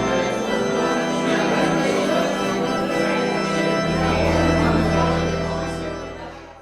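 Church organ playing sustained chords, with a deep bass note coming in about four seconds in, then fading out near the end.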